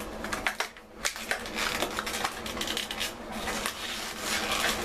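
An old shower valve cartridge being worked out of the valve body: a run of small clicks, knocks and scraping of metal and plastic. It is a worn cartridge whose rubber rings the owner takes to be worn out, causing the leak.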